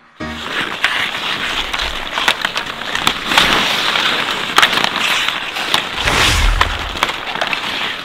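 Ice hockey played on an outdoor rink: skate blades scraping and hissing on the ice, with many sharp clacks of sticks hitting the puck and the ice.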